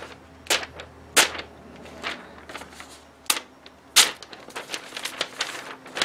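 A few sharp, separate snaps and clicks from a sheet of lined notebook paper and a knife being handled, the loudest about a second in and about four seconds in.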